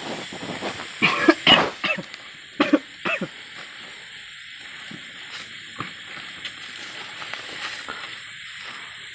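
A young man coughing in a quick run of loud, short bursts in the first three seconds or so, after which only a low steady outdoor background with a few faint ticks remains.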